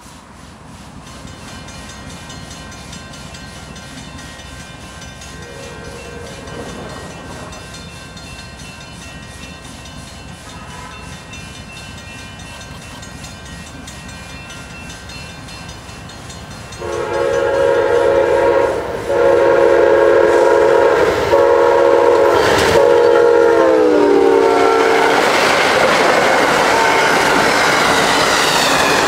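Amtrak passenger train passing at about 80 mph. Its locomotive horn sounds faintly in the distance a few seconds in, then blows loud from just past halfway, the chord dropping in pitch as the locomotive goes by. The rush and rail noise of the cars passing at speed follow.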